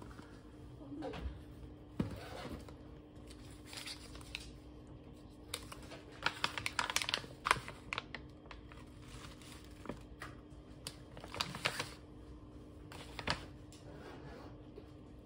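Packaged snacks and a plastic juice bottle being handled on a stone countertop: scattered light clicks, taps and rustles, bunched about halfway through and again near the end, over a steady low hum in a quiet room.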